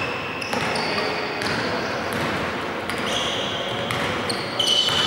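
Basketball dribbled on a hardwood gym floor, with short high squeaks of shoes on the court and players' voices, all echoing in a large hall.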